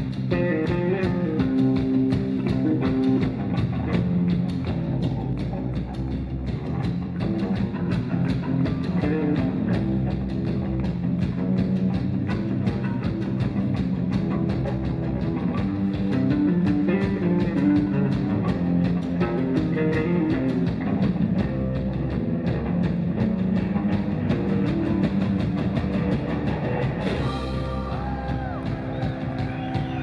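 Rock band playing live on a club stage: drum kit, electric bass and electric guitar.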